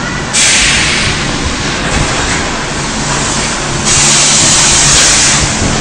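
High-frequency welding press for shower curtains running over a steady machine hum, with two sudden bursts of loud air hissing about a second and a half each, the first about a third of a second in and the second about four seconds in, and a weaker one between them: compressed air venting from the press's pneumatic cylinders as the press cycles.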